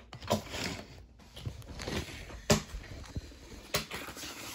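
Paper instruction sheet being handled and pressed flat on a table: rustling with three light knocks.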